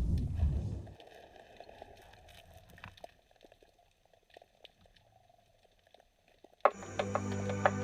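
Underwater bubbling that dies away within the first second, then faint scattered clicks and crackles under water. Background music comes in near the end.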